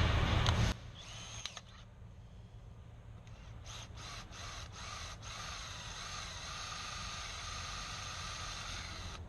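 Wind buffeting the microphone cuts off under a second in. A few clicks follow, then a power drill runs steadily for about five seconds.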